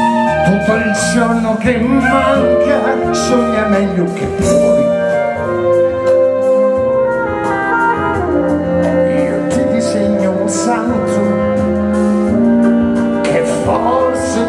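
Live band playing a song with long held notes: a man singing into a microphone over saxophone, keyboard, electric bass and drums with light cymbal strokes.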